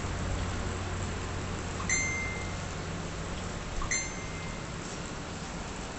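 Two light metallic clinks about two seconds apart, each ringing briefly, over a steady low hum.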